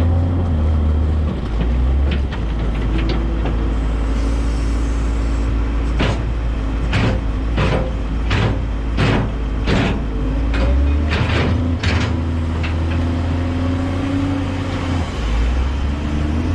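Front-loader tractor engine running, its pitch shifting a few times as it works. Midway there is a quick series of about a dozen sharp clanks, roughly two a second, lasting about six seconds.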